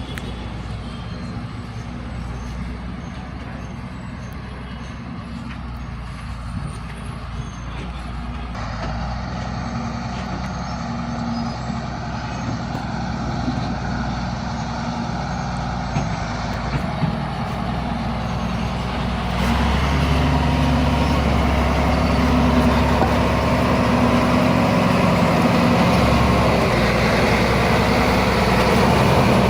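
Road traffic with heavy vehicle engines running steadily, growing louder, and a heavier engine coming in close about two-thirds of the way through.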